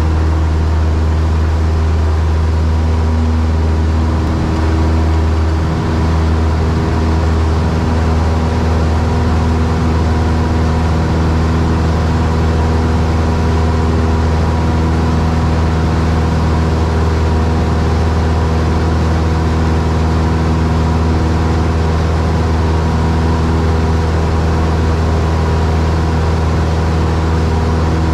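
Cessna 172's piston engine and propeller running steadily at high power during takeoff and climb, a loud even drone with a strong low hum, heard inside the cabin.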